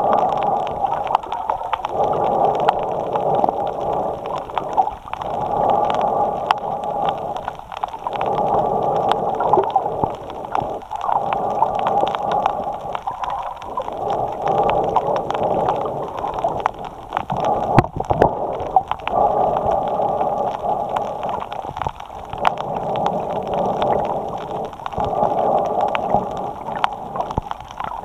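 Snorkeler's breathing through the snorkel, picked up by a camera mounted on the snorkel: breaths follow one another about every three seconds with short gaps between. Scattered faint clicks run through it, with one sharper click about two-thirds of the way in.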